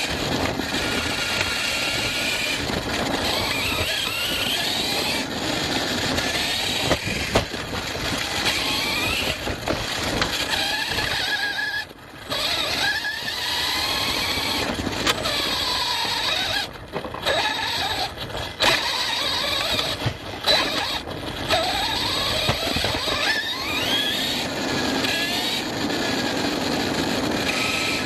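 ARRMA Fireteam 6S RC car's brushless motor whining and its drivetrain gears rattling as it drives over rough off-road ground, the whine rising and falling with the throttle. The sound drops out briefly about twelve seconds in and a few more times a little later.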